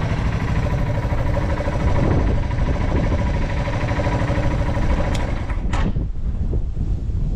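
Yamaha TW225's single-cylinder four-stroke engine idling steadily, stock and without abnormal noises. Two sharp clicks come between five and six seconds in, after which the engine tone fades away, leaving a low rumble.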